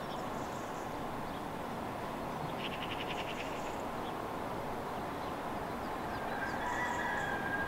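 Steady outdoor background noise, with a short rapid chirping trill about three seconds in and a drawn-out high tone that starts about six seconds in.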